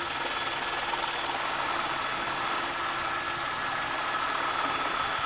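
Helicopter engine and rotor noise heard from inside the cabin: a steady drone with a constant whine on top.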